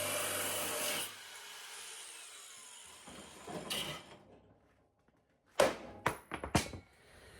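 Power cutting tool running on the Beetle's frame-head sheet metal, cutting it apart from the Napoleon hat. It cuts off about a second in and winds down, and a few sharp knocks follow near the end.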